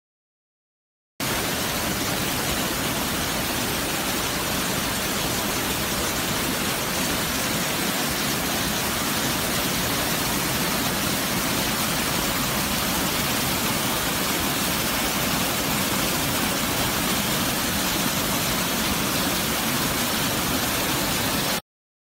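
Waterfall: a steady rush of falling water that starts abruptly about a second in and cuts off suddenly near the end.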